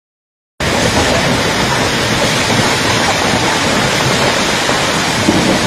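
Steady roar of a muddy flash-flood torrent rushing down a hillside river, starting abruptly about half a second in.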